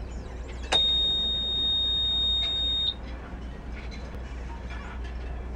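Boat's dashboard warning buzzer sounding one steady high tone for about two seconds, starting with a click and cutting off sharply. This is typical of the ignition key being switched on before starting the Yanmar FX24's engine.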